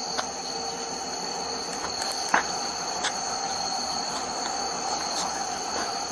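Crickets chirring steadily at two high pitches over a steady background hum, with a few light clicks, the sharpest about two and a half seconds in.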